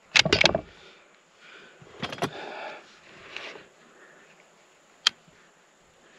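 Handling noise from a bolt-action 6.5 Creedmoor hunting rifle being readied to fire: a loud clatter of knocks at the start, two lighter clicks about two seconds in, and one sharp click about five seconds in.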